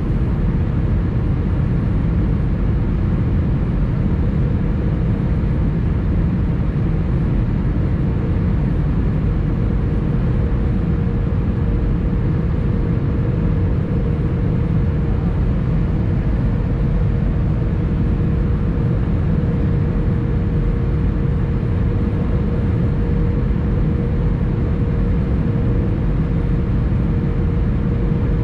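Airbus A320 cabin noise on final approach, heard inside the cabin: the steady rush of its CFM56 engines and airflow, with a thin steady hum on top.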